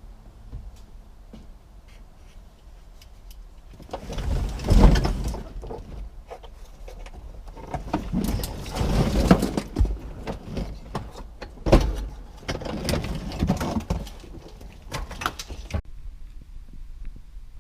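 Hands working a car's main wiring harness off the dashboard carrier and heater box: bouts of rustling and scraping with sharp clicks, starting about four, eight, twelve and fifteen seconds in.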